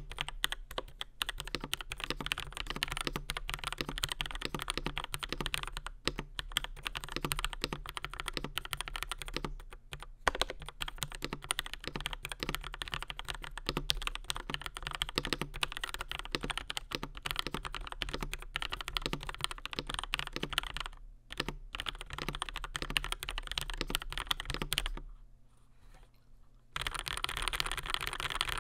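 Steady typing on a DURGOD K620W mechanical keyboard with linear Gateron CAP Black Crystal V2 Silver switches, an aluminium plate and PBT doubleshot keycaps: a dense, continuous run of keystroke clicks. Typing pauses briefly about three-quarters through and then carries on.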